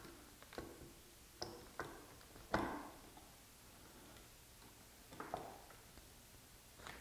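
Scattered light clicks and knocks of a steel locking face clamp being fitted over the corner joint of a pine 2x2 frame, with one louder knock about two and a half seconds in.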